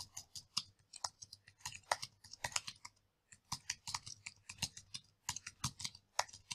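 Typing on a computer keyboard: an uneven run of quick key clicks, with a short pause about three seconds in.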